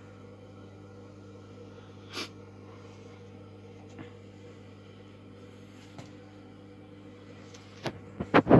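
A steady low hum, with a single sharp knock about two seconds in and a burst of loud knocks and rustles near the end.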